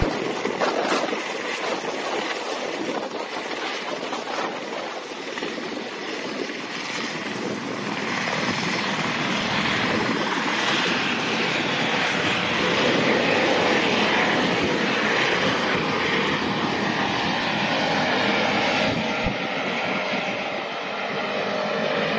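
Eurocopter EC130 helicopter running, its turbine and rotor noise steady as it lifts off and climbs away.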